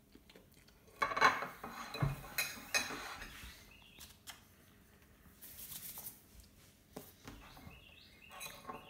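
A metal fork clinking and scraping against a ceramic plate, a quick run of clinks about a second in, then a brief rustle and a few small taps as a new Peep is set on the plate.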